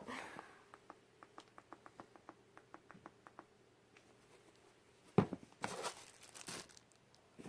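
A run of quick, faint, evenly spaced clicks, then a knock about five seconds in and a short burst of plastic packaging crinkling as the light-up shoes are handled.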